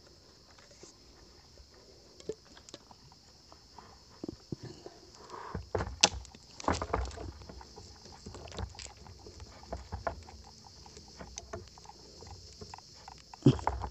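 Handling noises as a shot snakehead is hauled up on the crossbow's line through the branches: leaves and twigs rustling with scattered knocks and clicks. It is quiet for the first few seconds, busiest from about five to nine seconds in, with one sharp knock near the end.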